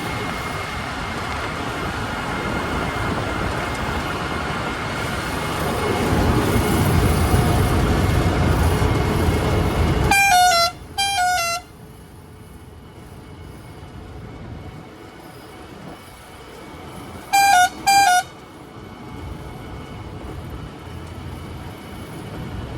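A vehicle horn honking twice in quick succession, each blast ending with a small drop in pitch, and another double honk about seven seconds later. Before the first honks, steady engine and road noise from a moving vehicle grows louder; after them the background is much quieter.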